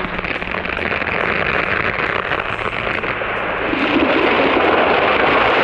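A large felled tree coming down: a loud rushing, crashing noise of the trunk and crown going through the air and branches, building towards the end.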